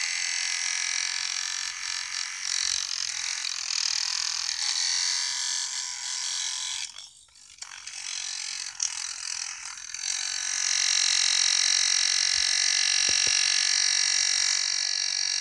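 Small battery-powered brushed DC hobby motor in a homemade toy truck running, a steady high-pitched whirring whine. It cuts out briefly about seven seconds in, then runs on louder and steadier from about ten seconds.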